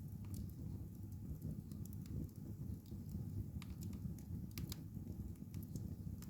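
Wood fire in a fireplace crackling: irregular sharp snaps and pops over a steady low rumble of the flames.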